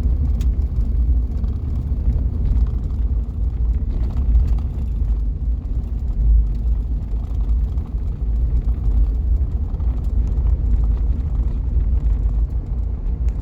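Steady low rumble of a vehicle driving, heard from inside the cabin: engine and tyre noise on the road.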